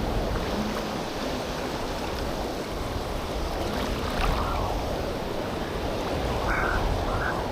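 Surf breaking steadily on a Gulf beach, with wind buffeting the microphone.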